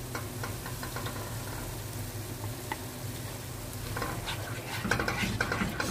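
Tomato-and-spice masala sizzling steadily in a pot. From about four seconds in, a spatula scrapes and stirs as yogurt is added to the masala.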